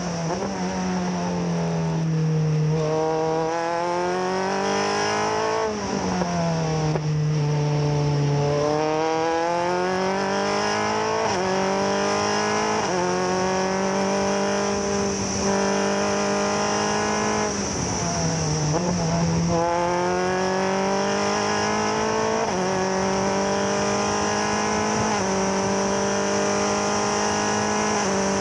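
FIA-F4 formula car's engine heard from on board at race pace: the revs climb through the gears and drop sharply at each gear change and on downshifts into corners. A steady high hiss of wind runs underneath.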